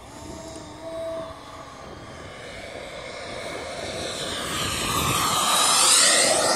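Aircraft engine growing louder as the plane makes a low pass, loudest about six seconds in, with a high whine that slides down in pitch as it goes by.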